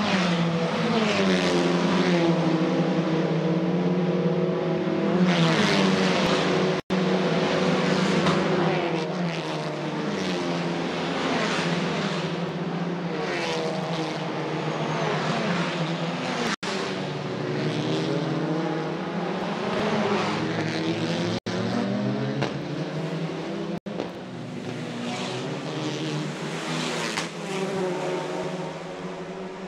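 Racing touring cars going by at speed, several engines overlapping, their pitch climbing and dropping again and again as the cars accelerate and shift gear. The sound cuts out for an instant four times.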